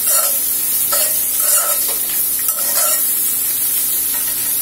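Spatula stirring and scraping egg, chicken and vegetables around a metal karahi, about one stroke a second, over a steady frying sizzle.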